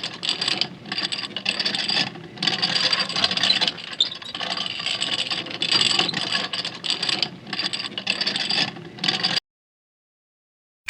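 Rattling, scraping mechanical noise with short breaks, cutting off about nine seconds in.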